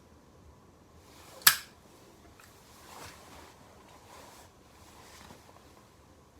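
A single sharp click about a second and a half in, over quiet room noise with a few faint soft rustles.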